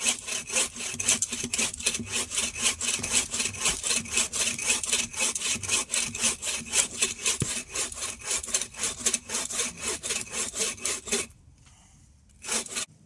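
Large bow saw cutting through a big log by hand in quick, even back-and-forth strokes. The sawing stops about eleven seconds in, with one more short stroke near the end.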